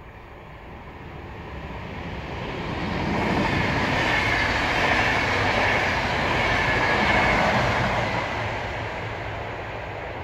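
VR InterCity train of double-deck coaches passing through without stopping. The rolling noise of the wheels on the rails swells over a couple of seconds, holds with a faint high ringing tone, then fades away near the end.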